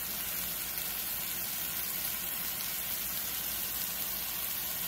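Mushrooms and plant-based meat crumbles sizzling steadily in hot oil in a frying pan.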